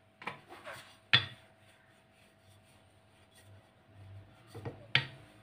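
Five or so light clinks and knocks from handling pieces of dough and kitchen utensils on a steel plate and a pastry board. The sharpest comes about a second in, and another comes near the end.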